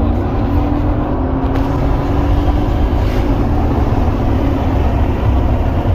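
2015 Mercedes G63 AMG's biturbo V8 and stock exhaust running as a steady low rumble, its engine tone easing slightly in the first second or so.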